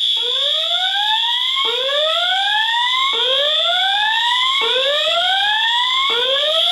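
Fire alarm voice-evacuation speaker sounding the slow-whoop tone: five rising sweeps, one about every one and a half seconds. Under them runs a continuous, loud, high-pitched steady alarm tone.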